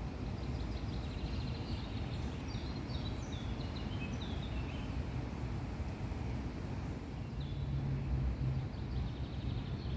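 Steady low outdoor background rumble with a run of short, quick bird chirps, each falling in pitch, about one to four seconds in and one more near the end. A brief low hum rises over the rumble about seven to eight seconds in.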